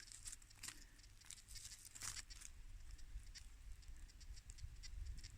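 Faint rustling and crackling, scattered light ticks of dry leaves and soil being disturbed at a dig hole.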